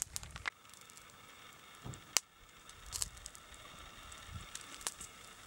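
Wood fire burning down to coals, crackling with a handful of sharp pops spread through, the loudest about two seconds in.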